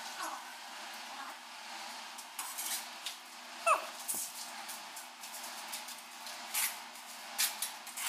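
Light clinks and scrapes of a trowel and tiles against a metal mortar pan, coming several times, with a short high falling whine about three and a half seconds in.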